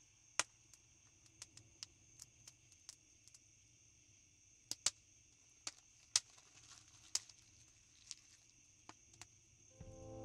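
Campfire crackling, with irregular sharp pops, over the steady chirring of crickets. Music comes in near the end.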